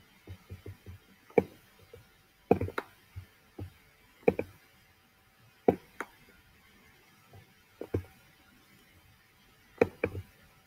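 Computer mouse clicking: a dozen or so short, sharp clicks at irregular intervals, a few in quick pairs.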